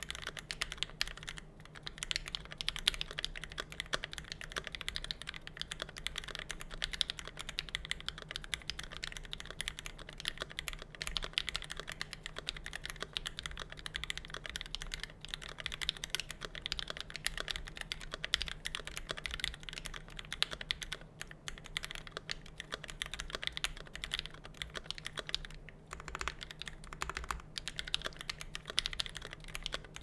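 Continuous typing on a KBD67 MKII hot-swap mechanical keyboard fitted with Gateron Ink Black V2 linear switches lubed with Krytox 205g0 and ePBT keycaps: a dense, even stream of key clacks, with a couple of brief pauses in the second half.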